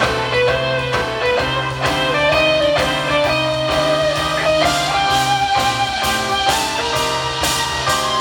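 Rock band playing live in an instrumental passage: a guitar carries a sliding lead melody over bass and a steady drum beat, with cymbals coming in more strongly about halfway through.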